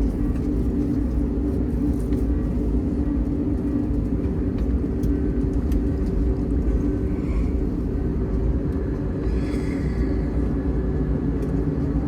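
Airbus A321neo cabin noise on the ground just after landing: a steady, low rumble of the engines and the airframe rolling along, with a constant hum underneath.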